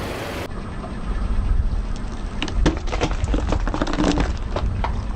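A car tyre rolling over a crunchy object and crushing it: a quick run of cracks and snaps, starting about two seconds in, over the low rumble of the car.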